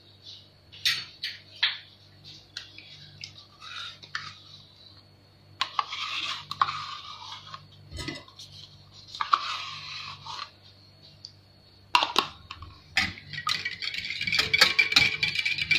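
Wire whisk in a glass bowl of egg, milk and yogurt batter: scattered clinks and short scrapes against the glass at first, then fast, steady whisking for the last few seconds.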